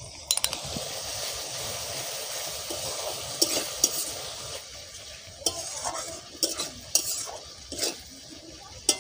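Whisked yogurt sizzling as it hits the hot oil and onion-spice paste in a metal kadai, while a metal spatula stirs it and scrapes against the pan. The sizzle is steady for the first few seconds and dies down about halfway through, leaving scattered scraping strokes.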